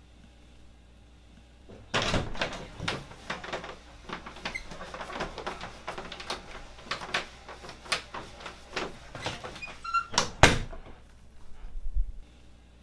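An interior door is opened, followed by a run of small knocks, clicks and cloth rustling while it stands open. It is then pushed shut with two sharp knocks, the loudest sounds here, about ten seconds in.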